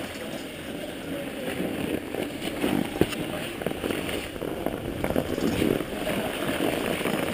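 Snowboard base scraping and sliding unevenly over packed snow as the rider skates along with one foot free, with jacket fabric rustling against the camera and a sharp knock about three seconds in.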